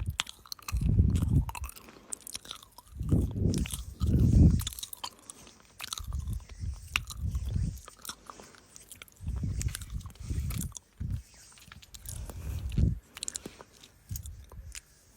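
Close-miked ASMR trigger sounds: a run of soft, irregular low thuds, each about half a second to a second long, with crackly clicks over them.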